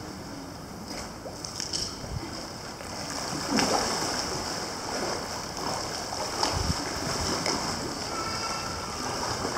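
Indoor swimming pool ambience: water lapping and splashing in the lanes under a steady hiss, with a few louder splashes about three and a half seconds in and again past the middle.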